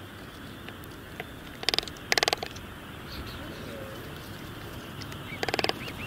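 Night outdoor ambience: a steady background hiss with faint high chirps, broken by short, rapidly pulsed buzzy animal calls, two close together about two seconds in and one more near the end.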